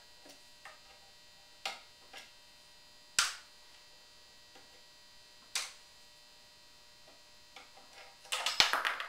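Small screwdriver turning tiny screws into the plates on a wooden rifle stock: a few separate sharp clicks and taps, the loudest about three seconds in, then a quick run of rattling clicks near the end, over a steady low electrical hum.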